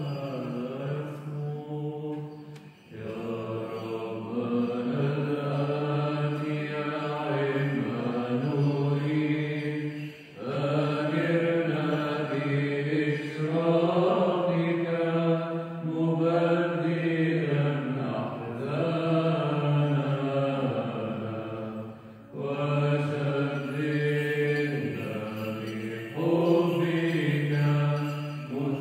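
Byzantine Orthodox chant: male voices singing a slow melismatic melody over a steady held drone note (the ison), pausing briefly for breath between phrases.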